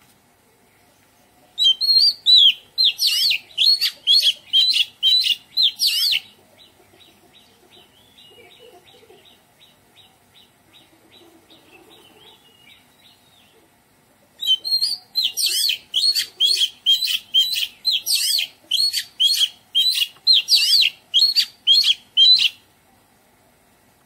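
Oriental magpie-robin singing: two long runs of loud, quickly repeated notes, about two or three a second, with a much softer, faster twitter between them.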